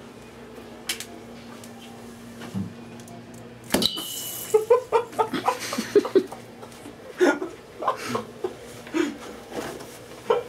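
A sharp click about four seconds in, then a person laughing in a run of short chuckles that goes on for several seconds.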